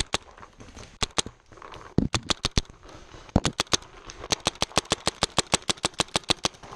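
Paintball marker firing at close range: a few single shots, then a rapid string of about six or seven shots a second from about halfway through.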